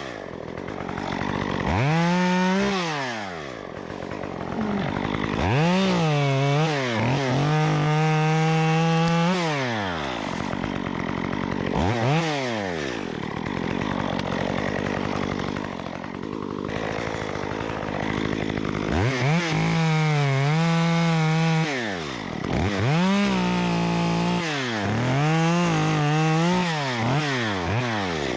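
Stihl MS 194T top-handle two-stroke chainsaw with a 1/4-inch ripping chain, cutting wood in repeated bursts. The engine revs up and falls back about eight times, holding a steady note under load during the longer cuts, with a lower stretch about halfway through.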